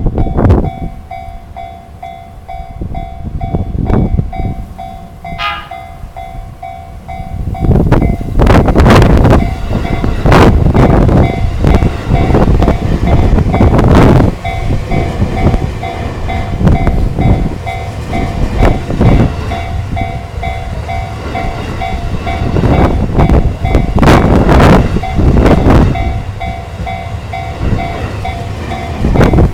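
Level crossing warning bell ringing in a steady repeating pattern while a limited express electric train passes at reduced speed because of strong wind. Heavy wind gusts buffet the microphone, and the train gives a brief blast on its electric horn.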